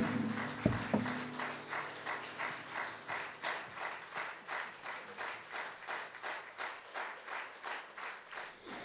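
Audience clapping in unison, a steady beat of about two and a half claps a second that slowly softens. In the first second, acoustic guitars are set down with a few knocks and their strings ring briefly.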